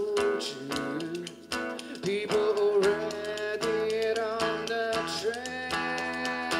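Live folk-pop song: a voice singing long, wavering notes over a strummed acoustic guitar with a steady beat.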